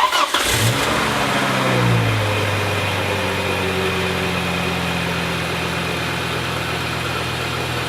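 Volvo 850 2.5-litre 20-valve five-cylinder engine starting: it catches at once, the revs settle over the first couple of seconds, and then it idles steadily.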